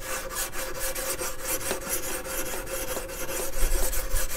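Whetstone on a guided knife sharpener stroked quickly back and forth along a clamped folding knife's S35VN steel blade: an even, rhythmic rasping of several strokes a second, with a thin steady ring under it.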